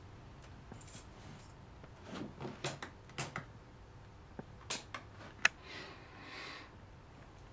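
A few light, irregular clicks and taps, with one sharper click about five and a half seconds in, over a faint background hiss.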